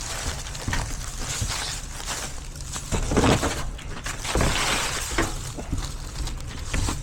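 Irregular scuffing and knocking of someone moving about, over a steady low rumble.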